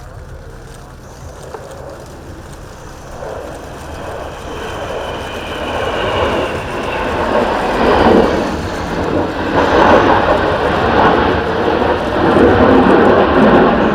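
Jet noise of an EAV-8B Harrier II and an F-35B flying past together: a rumble that builds steadily in loudness from about three seconds in, with a high whine that falls in pitch midway.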